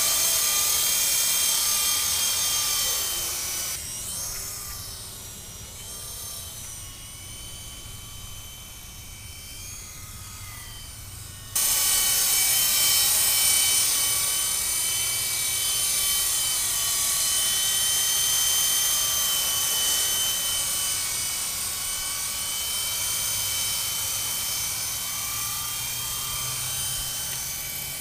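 Small electric RC helicopter (Skyrover Phoenix, 4-channel) flying: a steady high motor and rotor whine whose pitch wavers up and down with throttle. It drops quieter about four seconds in and comes back loud suddenly near the twelve-second mark.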